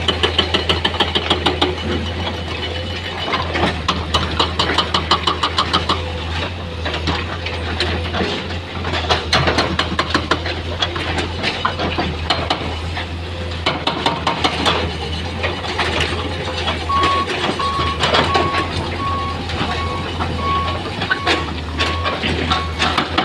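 Heavy diesel construction machinery running, a steady low engine drone with fast, rhythmic clattering. Late on, a repeated single-tone beep starts up and keeps going.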